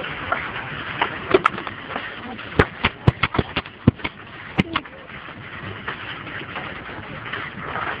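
Bamboo slats of a hanging footbridge clacking under footsteps: a quick, irregular run of sharp knocks between about one and five seconds in, over a steady hiss.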